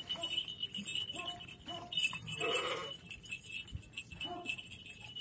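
Lambs bleating faintly, with one clearer short bleat a little over two seconds in.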